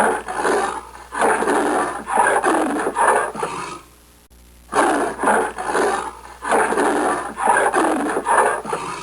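A recorded animal's roaring call, a series of about seven rough pulses, played twice with a short break about four seconds in.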